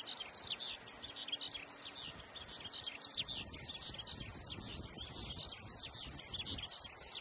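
Birds chirping in the trees: a dense, continuous run of short, high chirps that each drop quickly in pitch.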